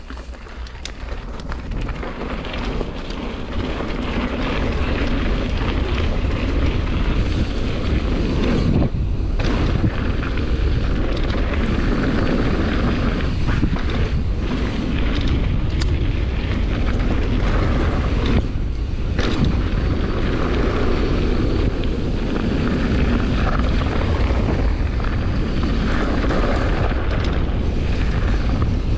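Mountain bike descending a rocky downhill track at speed: wind rushing over the microphone, with tyres rumbling and the bike rattling over rock. The noise eases briefly twice, about 9 and 19 seconds in.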